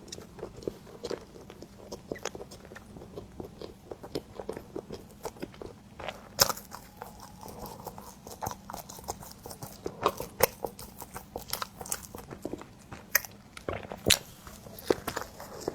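Close-miked eating of cream bread: bites and chewing with many irregular sharp clicks, the loudest about six seconds in.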